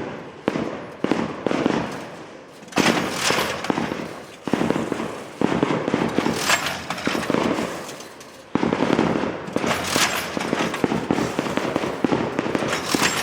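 Heavy crimped wire mesh machine running, a dense rapid metallic clatter that surges abruptly every one to three seconds and dies away between surges.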